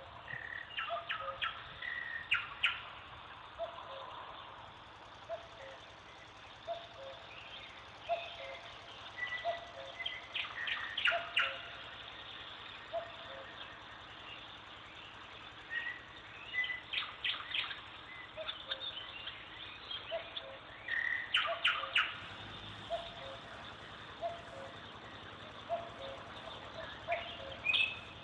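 Birds chirping and calling in bursts every few seconds, over a short low note that repeats about once a second.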